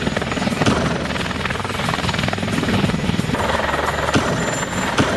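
A toy police helicopter's electronic rotor sound, a rapid steady chopping, with a few short knocks.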